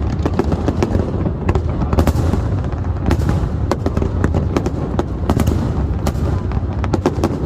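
Fireworks display: a rapid, irregular barrage of sharp bangs and crackles, several a second, over a steady low rumble.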